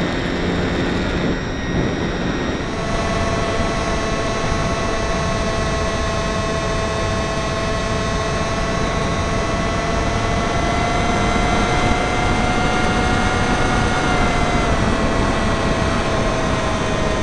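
Model plane's motor and propeller heard through the onboard camera, a steady whine over rushing wind noise. The whine picks up about three seconds in, creeps higher in pitch, then drops a little near the end.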